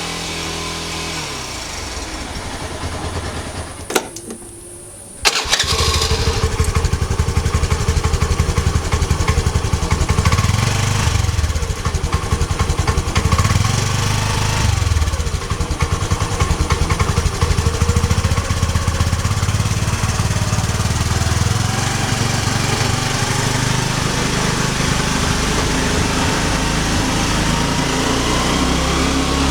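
Motorcycle engine sounds: a running engine winds down and stops in the first couple of seconds, and a click comes about four seconds in. Just after five seconds an engine starts and runs with a fast, even beat, is revved up and down a few times, then settles to a steady idle.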